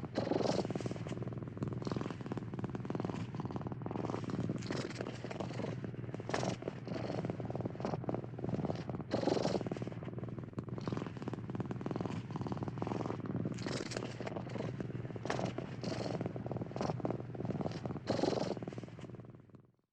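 Domestic cat purring continuously, the purr swelling in rhythm with its breathing about every two to three seconds, then fading out at the end.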